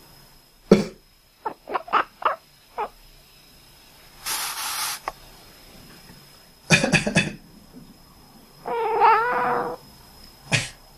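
A person coughing, and a cat answering with short, quick, duck-like quacking calls, a run of about five shortly after the first cough. More coughs come near the middle and the end, and a longer wavering call sounds a little before the end.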